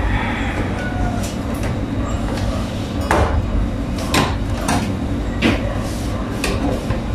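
Plastic headrail of a Korean blind knocking and clicking against the window frame and its mounting brackets as it is pressed into place by hand, with about five sharp clicks spread over the last four seconds.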